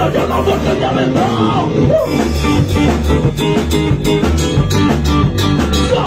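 Rock band playing live: electric guitar, bass guitar and drum kit with a steady beat, and a singer's voice over them.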